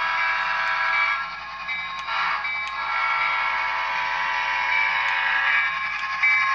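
Model diesel freight train running on its track, with a steady mix of humming tones from the locomotive and a brief rougher noise about two seconds in.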